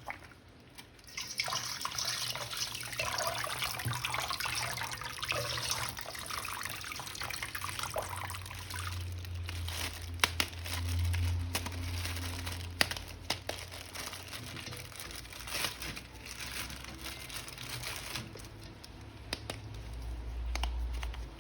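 Running water and splashing as a plastic toy figure is washed, with scattered small clicks and knocks of the plastic being handled.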